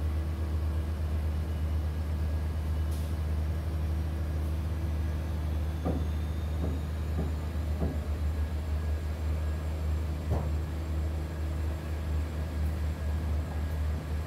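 Diesel passenger train running along the track, a steady low rumble heard from a carriage window. Several clacks of the wheels over rail joints come about six to eight seconds in, and another about ten seconds in.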